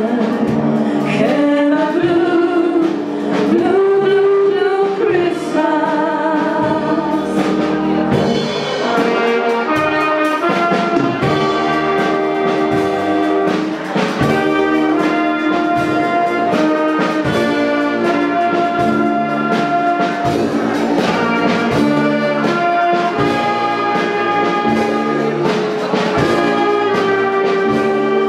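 Wind band with brass and clarinets playing a Christmas song, with two women singing into microphones over it in the first few seconds. From about eight seconds in the band plays on with a steady drum beat.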